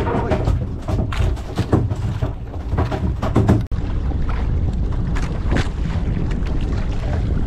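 Wind buffeting the microphone aboard a small fishing boat at sea, a loud low rumble throughout with scattered knocks and clatter.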